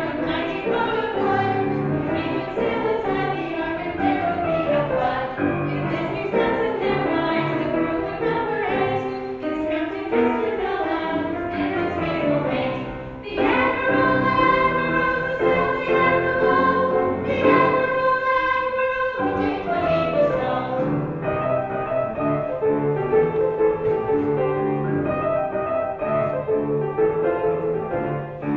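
Children's choir singing a cantata song with instrumental accompaniment; after a brief dip about thirteen seconds in, the voices hold long notes for several seconds.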